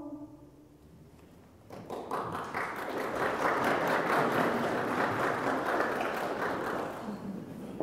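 A church congregation applauding. It starts about two seconds in, just after a choir's last sung note dies away, and fades near the end.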